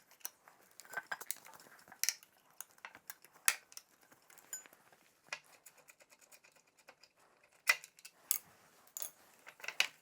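Hand tools and small metal parts clicking and clinking as parts are unbolted from a motorcycle: scattered sharp metallic ticks and knocks, a few louder ones a second or two apart.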